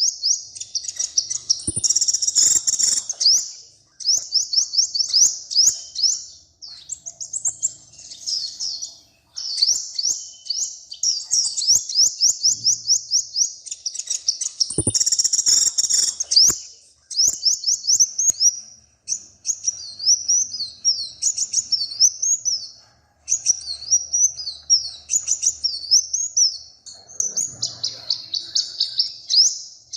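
Small songbird singing long, fast, high trilling phrases of rapidly repeated notes. Each phrase lasts a few seconds, with short pauses between them, and a few faint clicks fall in among the song twice.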